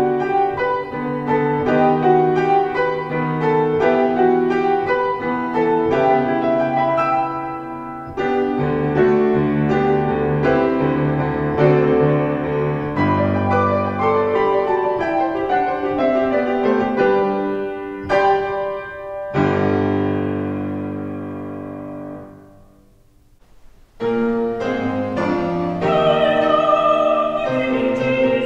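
Grand piano playing a solo classical-style piece; about 19 s in a final chord rings and fades away to a short near-silence. The music then starts again, and near the end a soprano voice singing with vibrato joins the piano.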